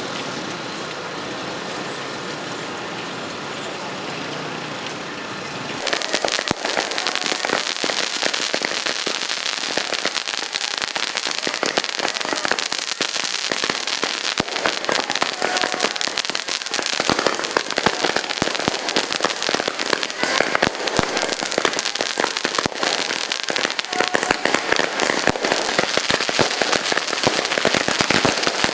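A long string of firecrackers going off, a rapid unbroken run of sharp cracks starting about six seconds in, after a steadier noise.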